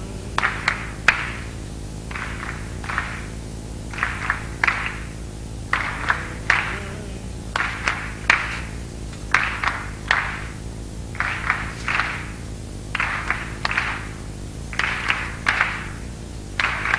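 A repeated rhythm of sharp hand strikes: groups of two or three strikes roughly every two seconds, cycling evenly throughout.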